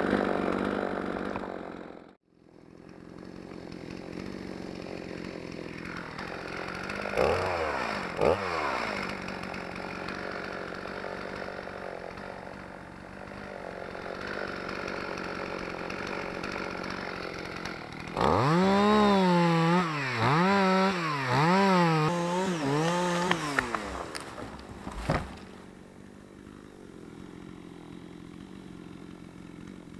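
Two-stroke chainsaw idling, with a brief cut-out near the start. It is blipped twice at about seven and eight seconds. Later it is revved up and down about five times in quick succession before settling back to idle.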